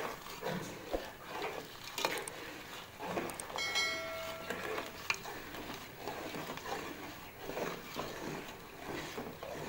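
A thin stream of water pouring into a metal pot of vermicelli and palm jaggery, with a ladle scraping and clinking against the pot as it is stirred. A short electronic chime rings once about four seconds in.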